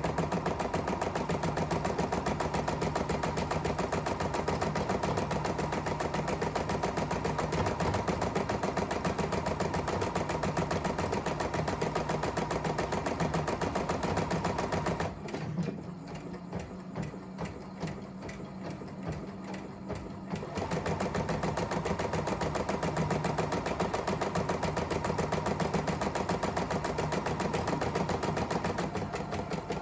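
ES3 computerized embroidery machine stitching a design, a fast, even needle rhythm over the hum of its motor. About halfway through it goes quieter for around five seconds, then picks back up to full speed.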